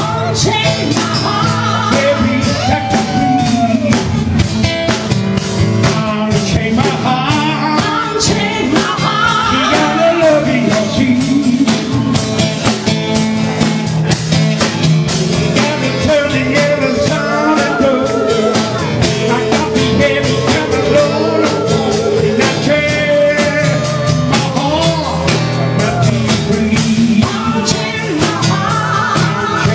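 Live band playing with a singer: drum kit and cymbals keeping a steady beat under the vocal and other instruments.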